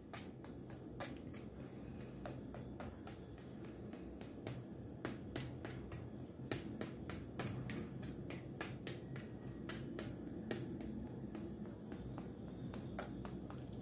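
A fork pricking holes in a thin pizza dough base in a steel plate: light, irregular clicks as the tines tap through to the metal, about one or two a second.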